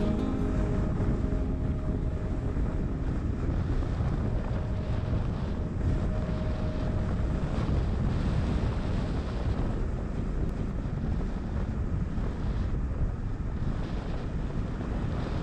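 Steady road and wind noise from a moving car, with wind rumbling on the microphone.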